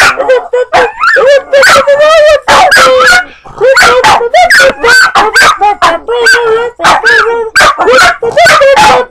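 Dogs barking and yipping loudly in quick succession, short calls that bend up and down in pitch, several a second, with one brief pause about three seconds in.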